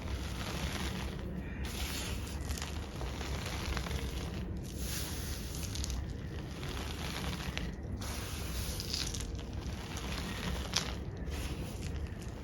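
Hands squeezing and rubbing loose gym chalk powder, a soft crunchy squish in strokes broken by short pauses every second or two.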